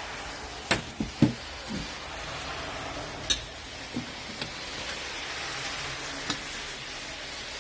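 Sharp clicks and knocks from handling a portable butane camp stove and its canister, over a steady hiss.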